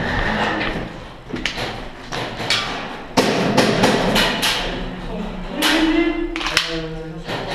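Irregular sharp cracks and knocks of an airsoft skirmish: gunfire and BBs striking walls, echoing in a bare concrete building, a dozen or so at uneven intervals. A brief voice comes in near the end.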